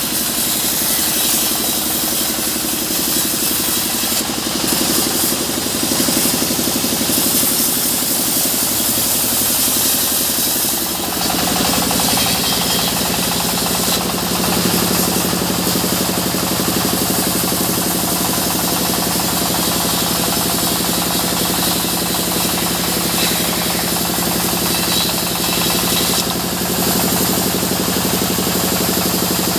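Band sawmill running steadily, its blade ripping a mahogany log into boards. About eleven seconds in the sound shifts and a steadier low hum comes up.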